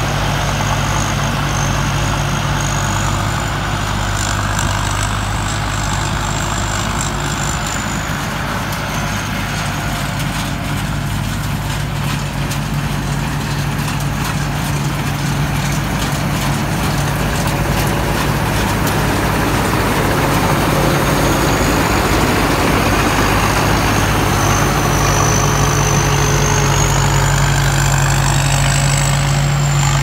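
Sit Charoen rice combine harvester running steadily as it cuts and threshes standing rice: a continuous engine drone with a thin high whine that drifts up and down in pitch. It grows louder in the last third as the machine comes closer.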